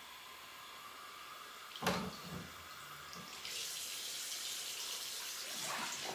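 Water running from a tap into a portable blender jar to rinse out soap, starting about three and a half seconds in with a steady hiss, after a single knock near two seconds.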